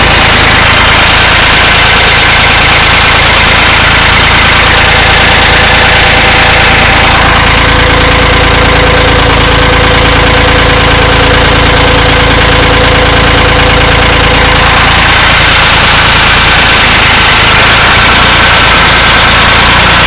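1970 Ford 3000 tractor's three-cylinder diesel engine running steadily and loud, just after starting from a months-long sit. A steady whine comes in for several seconds in the middle.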